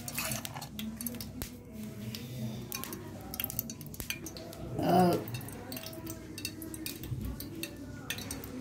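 Scattered light clinks and knocks of small metal cooking vessels and utensils being handled, with one brief rising-and-falling voiced call about halfway through.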